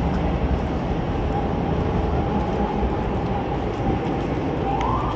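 City street noise: a steady low rumble with a faint constant tone, and a brief rising-then-falling whine near the end.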